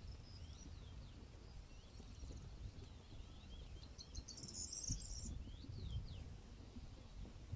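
Small birds chirping again and again, with a brief, denser high trill about four to five seconds in, over a steady low rumble.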